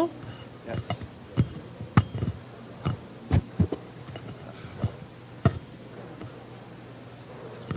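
Scattered sharp clicks and knocks, a dozen or so at uneven intervals, over a steady low hum.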